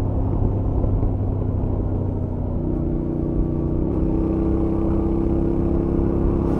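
Royal Enfield Interceptor 650's stock 648 cc parallel-twin engine running steadily at highway cruise, heard from the rider's helmet under low wind rush. Its note shifts slightly about three to four seconds in.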